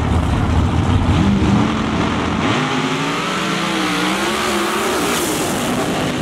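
Two nitrous big-block V8 drag racers, a pickup truck and a Camaro, launching side by side. A loud, heavy engine rumble gives way about two seconds in to engines pulling hard down the track, their pitch climbing and dipping at the gear changes as they move away.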